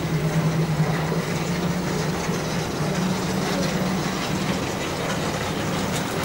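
Steady airport apron noise heard through the terminal windows: a low droning hum over a broad rumble.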